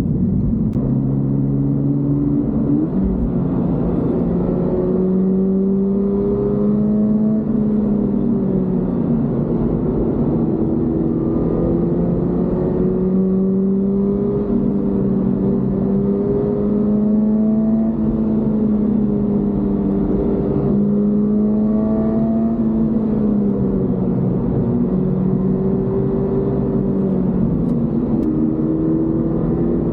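Toyota GR86's 2.4-litre flat-four boxer engine running under way. Its pitch climbs and drops several times as it revs and eases off, with a sudden step about three seconds in.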